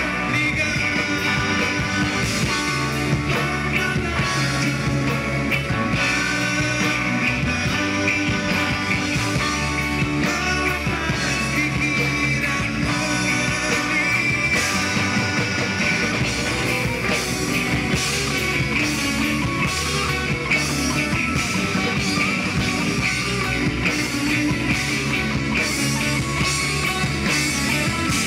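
A rock band playing live through a stage PA: electric guitars, bass, drums and keyboard, with a singer on the microphone. The music runs continuously and loud.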